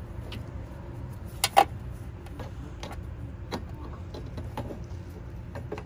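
Plastic clicks and taps of a halogen headlight bulb being handled and worked into its slot in the headlight housing, with a sharp double click about a second and a half in and a few lighter clicks later, over a steady low hum.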